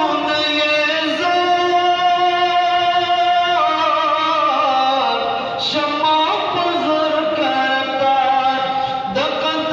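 Male voice singing a Pashto naat in long, drawn-out held notes that slide from one pitch to the next, without clear words.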